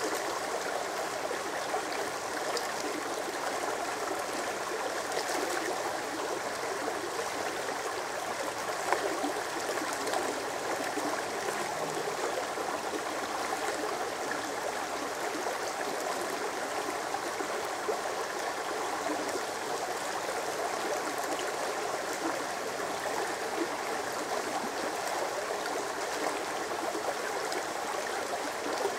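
Shallow creek running over rocks and stones, a steady, even babbling and rushing of water.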